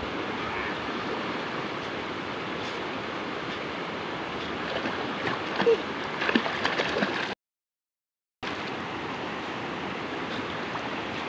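River water rushing steadily over rocks. There are a few sharper splashes from swimmers past the middle, and the sound cuts out completely for about a second.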